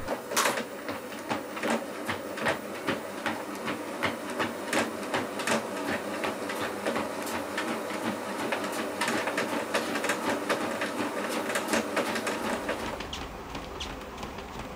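WalkingPad R1 Pro folding treadmill running under a runner: regular sharp footfall thuds on the belt, about three a second, over the steady hum of the motor and belt. About twelve seconds in, with the treadmill standing on its rubber floor mat, the footfalls turn softer and duller.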